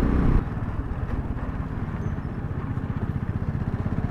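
Motorcycle engine running at low speed, heard from the rider's seat, with a steady, even pulsing. A louder stretch of sound stops abruptly about half a second in.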